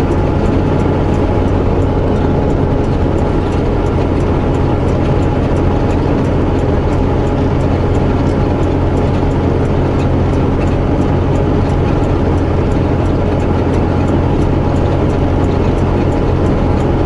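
Tractor-trailer's diesel engine running steadily under load on a slow climb, a constant low drone with road noise. A faint regular clicking runs underneath.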